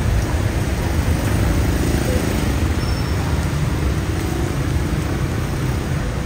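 Steady city road traffic: a continuous low rumble of passing cars and other motor vehicles.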